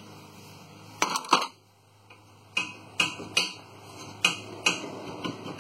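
Sharp metal clinks and knocks of hand tools and metal parts against a rear brake caliper as it is worked loose: two close together about a second in, then five more spaced about half a second apart.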